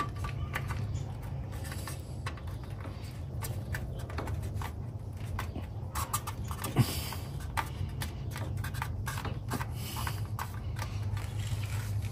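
Rubber edge trim being worked by hand onto a sheet-metal chassis bracket: scattered light scrapes and clicks over a steady low hum.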